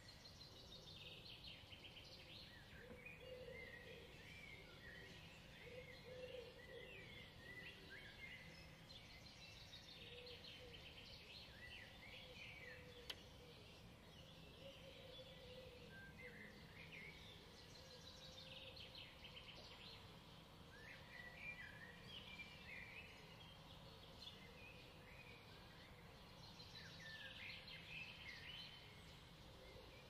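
Faint chorus of songbirds, many high chirps and trills overlapping throughout.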